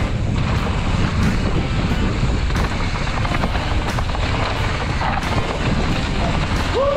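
Mountain bike ridden along a dirt trail: wind buffets the camera's microphone over the tyres rolling on dirt, with frequent short knocks and rattles of the bike over bumps. Near the end, a brief pitched squeal rises and falls.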